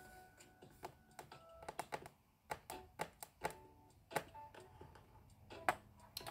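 Faint, irregular light clicks and taps of small tools handled on a wooden tabletop.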